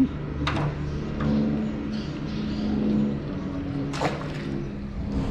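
Low, steady hum and drone of road traffic crossing the bridge overhead, with two sharp clicks, one about half a second in and one about four seconds in.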